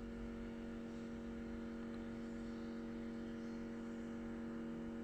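A steady electrical hum holding one constant pitch, with fainter higher tones above it and no change throughout.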